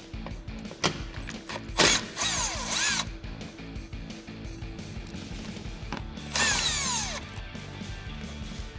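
Cordless power driver spinning in two short bursts of about a second each, backing screws out of a car's plastic underbody splash shield; the motor's whine falls in pitch as each burst runs down. A few light clicks of the bit on the screws come between the bursts.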